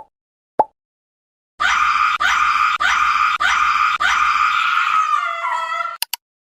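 A short beep, then a loud screaming cry sound effect that pulses about every 0.6 seconds for about four seconds and trails off near the end, followed by two quick clicks.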